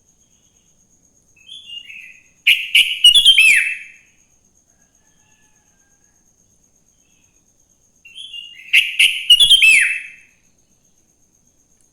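Sooty-headed bulbul (kutilang) singing two short loud phrases several seconds apart. Each phrase is a run of quick chirpy notes ending in a downward-sliding whistle.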